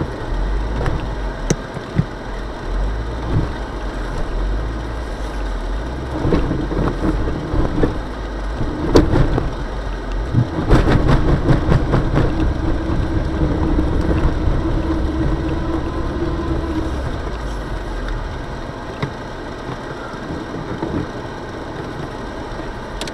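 Car engine revving under load while the wheels, fitted with homemade snow chain bracelets, churn through deep snow with knocks and clatter, heard from inside the car. The effort peaks about halfway through and eases near the end as the car frees itself from where it got stuck.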